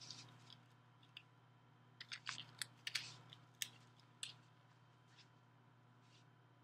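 Faint rustling and small crackling clicks of an elastic exercise band being handled and looped around a foot, clustered about two to four seconds in, over a low steady room hum.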